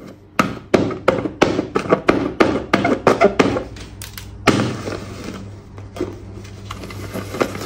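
A pen tip jabbed again and again into a paper picture, about four sharp taps a second, poking holes in it. Then comes a steady rustle for about three seconds.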